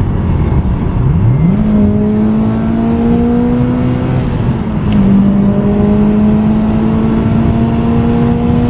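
Subaru Impreza WRX STI's flat-four engine under hard acceleration, heard from inside the cabin over road noise. The engine note shoots up about a second in and climbs slowly toward about 7,000 rpm, drops with an upshift about halfway through, then climbs again as the car pulls in the next gear.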